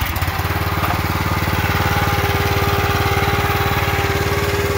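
The log splitter's small single-cylinder gas engine catches on a pull of the recoil starter and settles into steady running.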